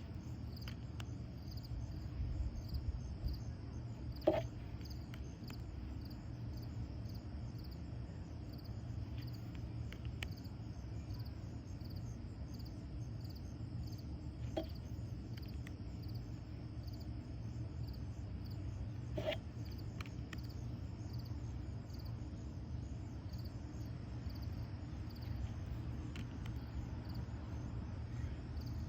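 Oracle cards being handled, with three short clicks as cards are set down, over a steady low hum and a faint, regular high-pitched pulsing in the background.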